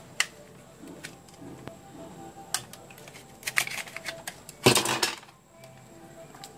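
Hard plastic robot-vacuum parts clicking and knocking as they are handled, with a cluster of clicks and then a louder clatter as parts are set down on the workbench about three-quarters of the way in.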